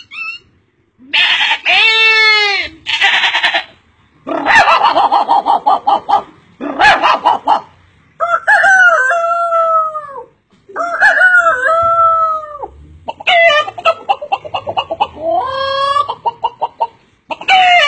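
A man's voice imitating farmyard fowl: a string of rooster crows, each rising and then falling in pitch, with rapid clucking runs near the end.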